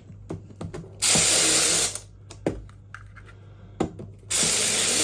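Airsoft BBs being emptied out of magazines in two rushes of rattling about a second each, with clicks of plastic magazines being handled between them.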